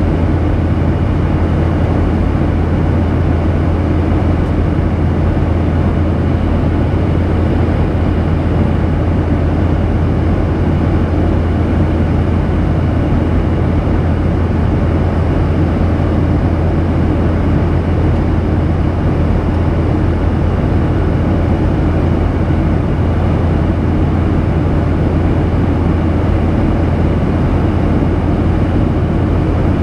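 Steady cabin noise of a Boeing 737-800 in cruise, heard inside the cabin at a window seat over the wing: the even drone of its CFM56-7B turbofans and rushing airflow, with a strong low hum.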